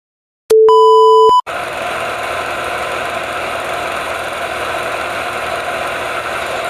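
A loud steady electronic beep of just under a second, followed by the steady whirring of a film projector running.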